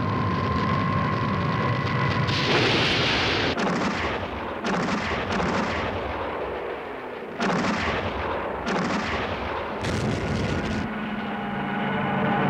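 Ship's anti-aircraft guns firing, a string of about six heavy blasts with ringing tails, after a steady high drone in the first two seconds. Near the end, music with held tones comes in.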